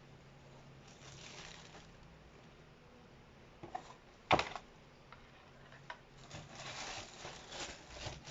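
Handling noises from unboxing a pair of sneakers: soft rustling of packaging, a few light clicks, and one sharp knock a little over four seconds in, with more rustling toward the end.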